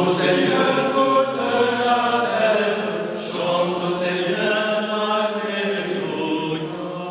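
A choir chanting a church hymn in several voices, with a low note held steadily under the melody. The hymn fades out near the end.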